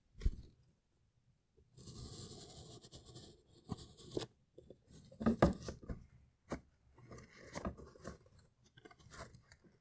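Cardboard box and packing material being handled and opened to unpack a telescope eyepiece. A sharp thump at the start, then a steady scratchy noise for about a second and a half, followed by scattered knocks and rustles.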